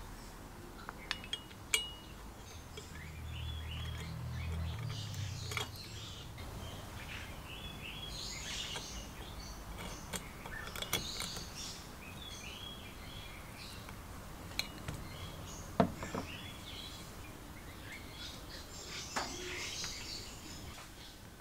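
Brass valve spindle and knob of a vintage Max Sievert blowtorch being handled and fitted together by hand: scattered light metallic clicks and taps, the sharpest about sixteen seconds in, with faint high chirps throughout.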